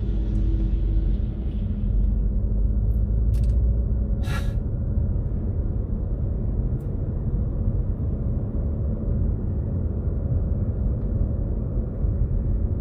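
Steady low rumble of a car's engine and road noise heard inside the cabin as it rolls slowly, with a brief click and a short hiss a few seconds in.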